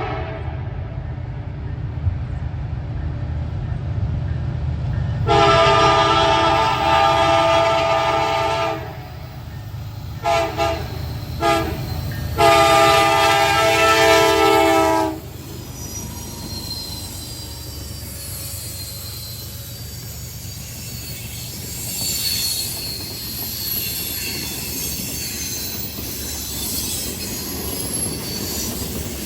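Diesel freight locomotive's horn sounding the grade-crossing signal: a long blast, two short blasts, then a final long blast. After the horn comes the low rumble of the freight train passing, with faint wheel squeal from the curve.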